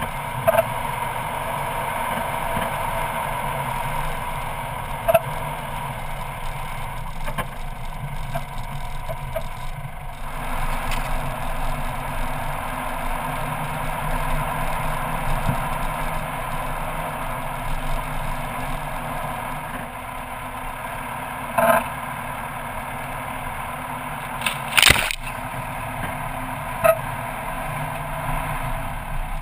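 Four-wheel drive vehicle driving on a rough dirt track: steady engine and tyre noise, with a few short sharp knocks, the loudest near the end.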